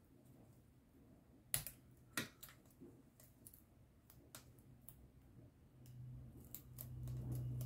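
Small craft scissors snipping foam tape strips on card: a run of faint, sharp clicks, with two louder snips about one and a half and two seconds in. A low hum comes in near the end.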